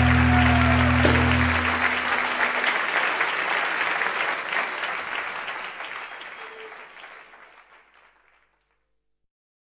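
The song's final sustained notes stop about a second and a half in, leaving audience applause that fades out steadily to silence near the end.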